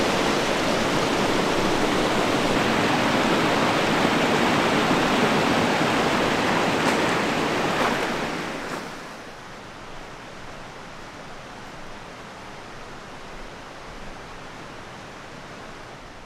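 A rushing creek, a steady hiss of water. About eight seconds in it drops to a much fainter background rush.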